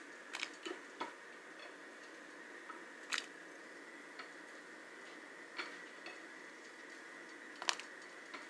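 Scattered light clicks and taps from handling things at the stove while cooking, irregular and about ten in all, the sharpest about three seconds in and near the end, over a steady faint hum.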